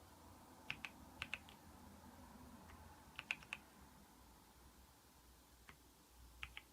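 Keychron V6 Max mechanical keyboard with Gateron Brown tactile switches being typed on sparsely: short groups of two to four keystrokes, about a dozen clacks in all, with pauses between the groups.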